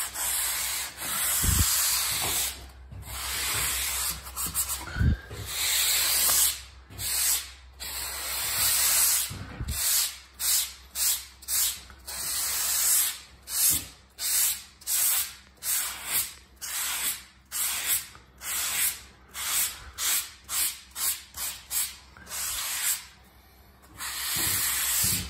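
Hand sanding block rubbed over dried joint compound on a taped drywall inside corner: a scratchy hiss in back-and-forth strokes. The strokes are long at first, and from about ten seconds in they turn short and quick, about two a second. There are a couple of dull bumps in the first five seconds.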